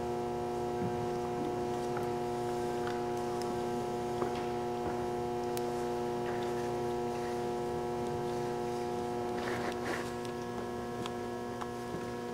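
Steady electrical hum made of several fixed tones, with a few faint clicks over it; it drops slightly in level about ten seconds in.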